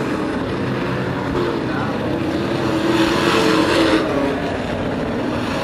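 Several racing pickup trucks' engines running hard as the pack laps the oval, their tones wavering and overlapping, with a louder, brighter pass about three seconds in.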